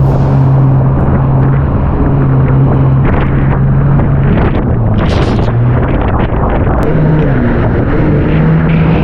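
Jet ski engine running at speed, its pitch holding steady and then dipping and rising a few times from about four seconds in, under heavy wind on the microphone. A brief hiss comes about five seconds in.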